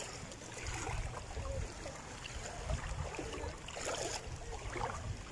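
Wind rumbling on a phone microphone over shallow sea water, with faint lapping of the water.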